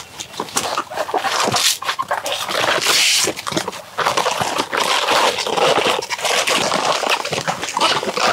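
Crisp cracking, scraping and squeaking of a banana tree trunk's layered sheaths being peeled apart by hand and sliced with a knife, in a dense run of short cracks.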